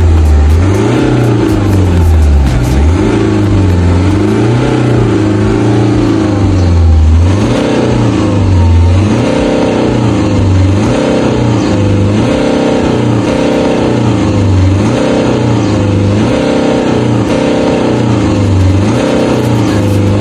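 Car engine revved by repeated pumping of the accelerator pedal. It swells up and down slowly at first, then from about seven seconds in it is blipped quickly, about once a second.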